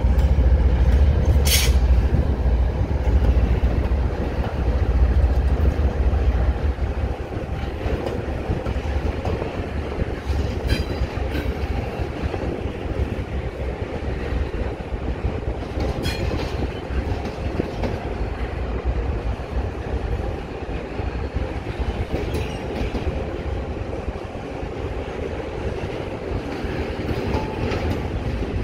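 CN diesel freight train passing close by: a heavy low rumble from the locomotives for the first several seconds, then double-stack intermodal cars rolling past with steady wheel-on-rail noise and a few sharp clicks and clacks.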